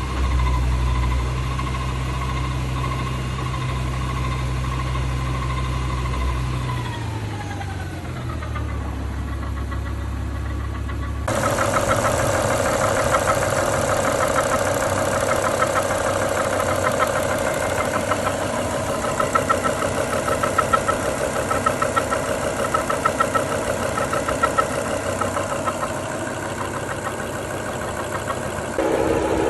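BMW E60 M5's S85 V10 engine running with a steady high whine, the noise the owner is recording; the whine falls in pitch as the revs drop about seven seconds in. About eleven seconds in the sound changes abruptly to a steady, noisier engine run.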